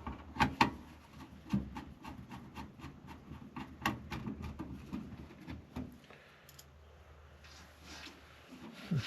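Irregular clicks, knocks and clatter of computer hardware being handled and fitted inside a PC case, with two sharp clicks about half a second in and a busy run of small clicks over the next few seconds, easing off near the end.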